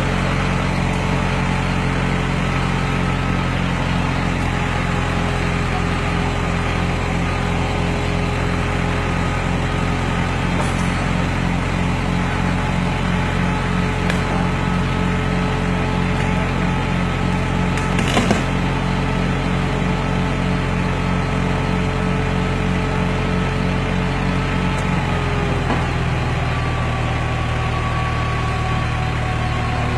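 Flatbed tow truck's engine running steadily with a thin steady whine from the winch as it drags an overturned car over onto its side. A single sharp crack a little past halfway, and near the end the engine note and the whine shift slightly lower.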